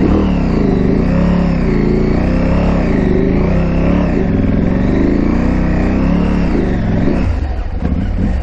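KTM 890 Adventure R's parallel-twin engine under way on an off-road trail, its revs rising and falling again and again as the throttle is worked, over a steady low rumble. It settles to a lower, rougher note near the end.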